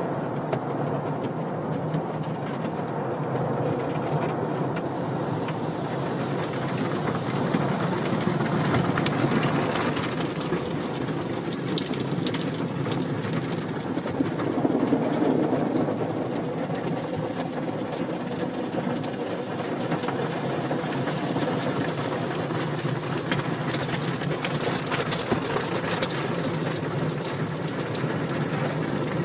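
Automatic car wash machinery running, a steady rumbling hum with a continuous hiss.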